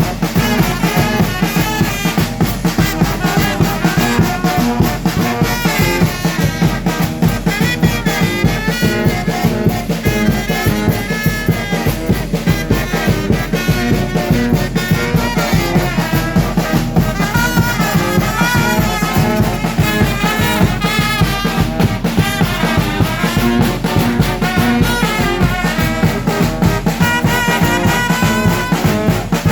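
A Mexican brass band (banda) playing: trumpets and trombones carry the tune over a steady, fast percussion beat.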